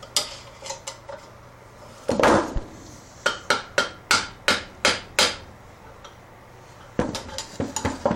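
Hammer tapping metal on metal, opening up the locking piece over the connecting rod bolts of a Briggs & Stratton small engine. Scattered sharp strikes, one loud one about two seconds in, a quick run of about three taps a second in the middle, and another cluster near the end.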